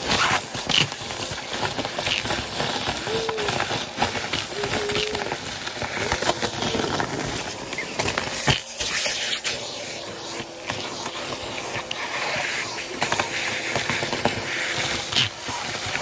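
Vacuum cleaner running with its crevice tool worked over carpet, a steady hiss of suction broken by short clicks and rattles as sequins and confetti are drawn in.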